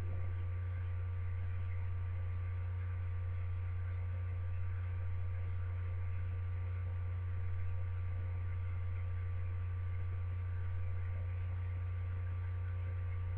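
Steady low hum with faint hiss and a few faint high steady tones, unchanging throughout; no speech.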